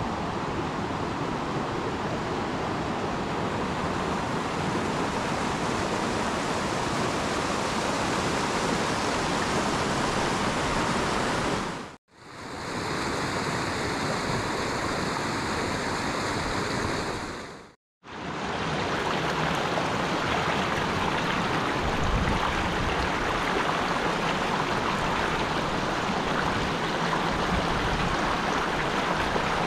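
Tanew river rushing steadily over shallow rapids and low cascades. The sound dips out briefly twice, at cuts between shots, and a low rumble comes in near the end.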